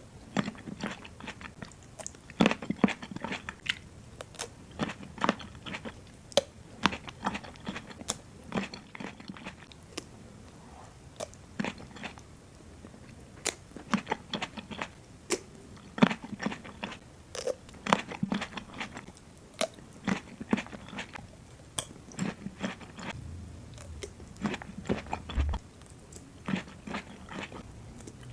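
Grapes being bitten and chewed close to the microphone: crisp snaps of the skins breaking, at an irregular pace of several a second, between quieter chewing.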